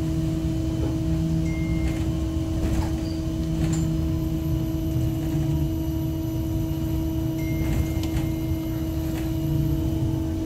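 Inside an Ursus T70116 trolleybus: a steady electrical hum from its onboard equipment over a low rumble, with a few faint knocks. Two short high tones sound about a second and a half in and again about seven seconds in.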